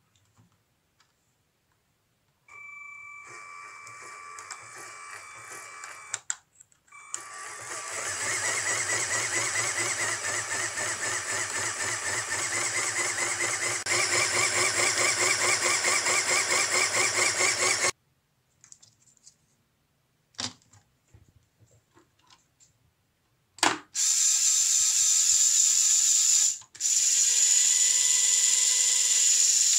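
A small LEGO Technic motorised mechanism running with a fast, even whir in three runs: a quieter one of a few seconds, then a longer, louder one that steps up in level partway through, then after a couple of single clicks a last run broken by a short pause.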